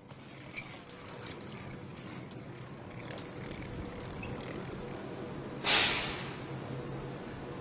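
Fuxing high-speed train standing at the platform with a steady low hum, broken about six seconds in by a sudden sharp hiss of compressed air being let out, which dies away within half a second.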